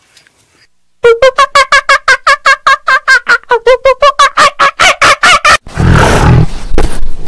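An animal calling in a rapid run of short honking calls, about five a second, for several seconds; then a tiger roars loudly near the end.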